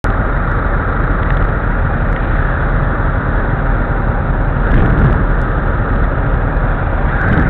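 Motorcycle and surrounding traffic engines idling at a standstill, a steady low hum with street noise, swelling briefly about five seconds in.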